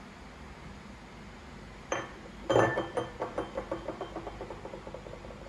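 Tableware clinking: a light click, then a sharp knock as a hard dish or glass item is set down, followed by a quick run of fading, ringing rattles as it rocks to rest.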